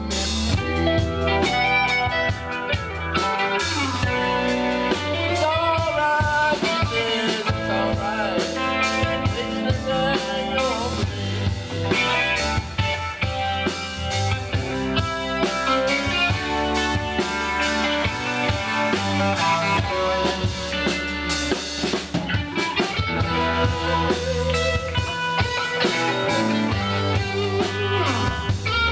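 Live band playing an instrumental passage with two electric guitars, electric bass and drum kit; a guitar line bends in pitch during the first several seconds.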